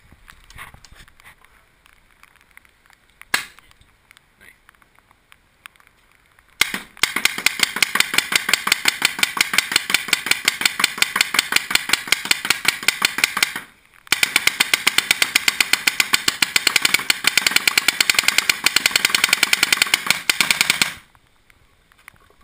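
Azodin Blitz paintball marker firing on semi-automatic: one single shot, then two long strings of rapid, evenly spaced pops with a brief pause between them. A steady whir runs under the strings, the Invert Halo Too electronic hopper feeding paintballs.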